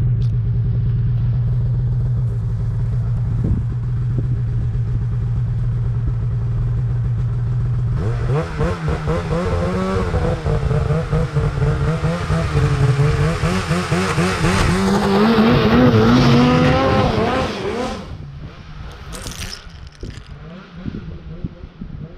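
2017 Arctic Cat M8000 ProClimb snowmobile's two-stroke twin engine idling steadily, then revving hard with a wavering, rising and falling pitch for about ten seconds from about eight seconds in, before dropping away to a quieter hiss near the end.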